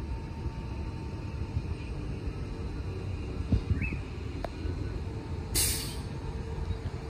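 Transperth A-series electric multiple-unit train pulling slowly into the platform, with a low rumble throughout. About five and a half seconds in comes a short hiss of air from the brakes.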